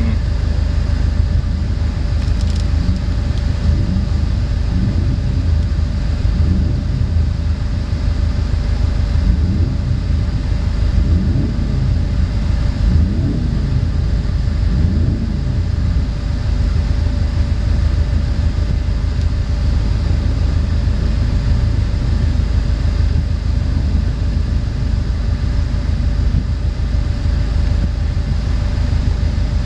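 2002 Subaru WRX's turbocharged flat-four idling, heard from inside the cabin as a steady low rumble with a constant faint hum over it.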